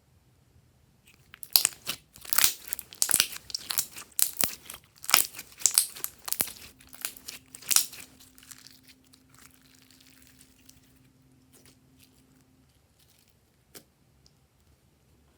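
Rapid crunching and crinkling from something crisp being handled by hand: a dense run of sharp crackles for about six seconds that thins out and stops. A single click comes a little before the end.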